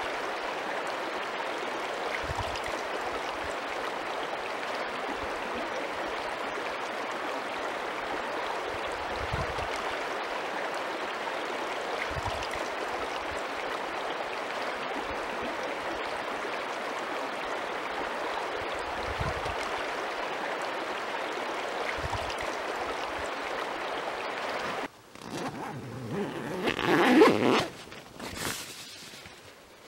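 Steady rushing of a river, with a few faint low thumps. About 25 seconds in it cuts off and gives way to rustling and scraping handling noise, loudest a couple of seconds later.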